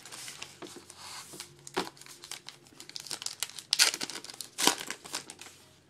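Baseball card pack wrapper crinkling as it is handled and torn open, with two louder crackling rips about four seconds in and again a second later.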